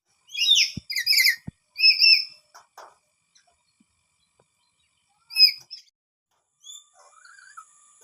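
Lory parrot giving loud, harsh calls: a quick run of four in the first two seconds and one more about five seconds in, with fainter bird calls near the end.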